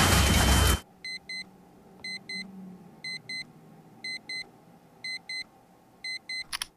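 A loud noisy sound cuts off abruptly under a second in. Then a smartphone alarm beeps in quick high pairs, about one pair a second, and stops with a short burst just before the end.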